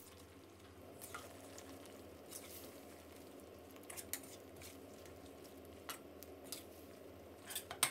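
Metal ladle stirring beef through thick coconut-milk curry paste in a stainless steel pan, with faint scrapes and clinks against the pan about once a second.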